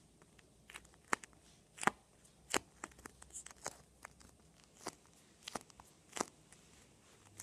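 Hands squeezing and kneading a homemade foam squishy, giving faint, irregular crackles and clicks as the foam is pressed.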